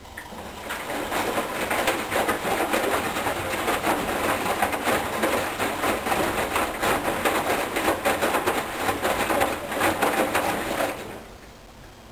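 Hoover Dynamic Wash 10124 DP washing machine drum turning during the last rinse, wet laundry and water sloshing and slapping in a steady rhythm. It builds up just after the start and stops about 11 seconds in, as the drum pauses between turns.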